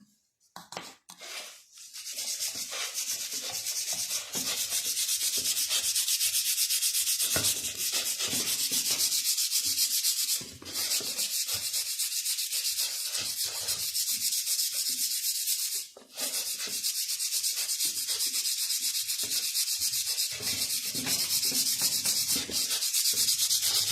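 Brisk hand scrubbing of a Honda CG 125 motorcycle's rear wheel hub, as cleaner and polishing compound are worked in. The strokes come quickly and evenly, with two short pauses partway through.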